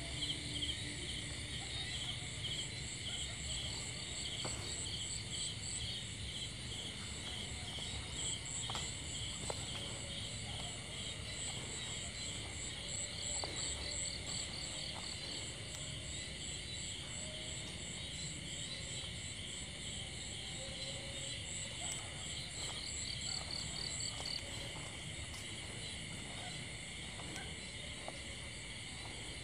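Night insect chorus: crickets and other insects trilling steadily at several pitches at once, some in fast pulses, with a few faint soft clicks.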